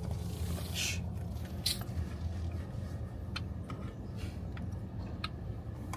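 Steady low rumble of a car driving, heard from inside the cabin, with a brief rustle near the start and a few faint clicks.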